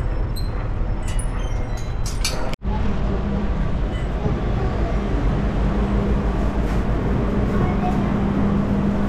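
Busy outdoor crowd and traffic noise, then, after a sudden break about two and a half seconds in, the steady low hum and rumble of a funicular railway car running on its incline, heard from inside the car.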